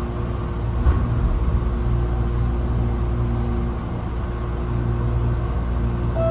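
Electric commuter train heard from the driver's cab: a steady low running rumble with a constant electrical hum as it moves off slowly. A single knock comes about a second in.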